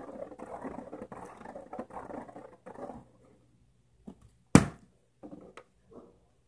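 Rustling handling noise, then about a second and a half later one loud, sharp smack of a partly filled plastic water bottle landing on a tile floor, followed by a few faint knocks.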